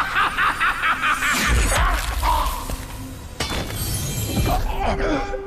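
Dramatic fight-scene music with a fast pulsing figure. A heavy booming crash with shattering comes in about a second and a half in, and a second crash follows about two seconds later. A single sustained note enters near the end.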